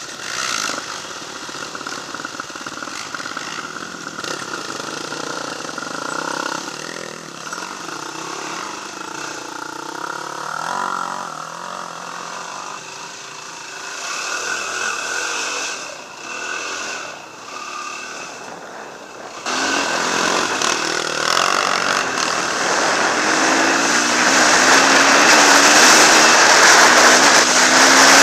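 Dirt bike engine running and revving up and down, heard from a camera mounted on the bike as it rides a trail, with splashing through a muddy water crossing about halfway. About two-thirds in, a louder, steady rushing noise sets in over the engine as the bike speeds along.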